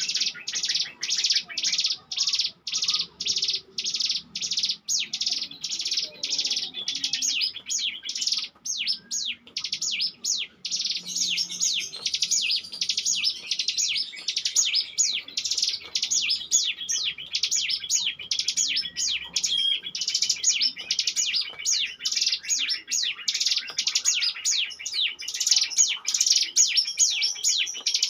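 Ciblek gunung (a prinia) singing its rapid 'ngebren' song: a long, unbroken run of sharp, high chipping notes about two to three a second, packing closer into a busier trill after the first several seconds.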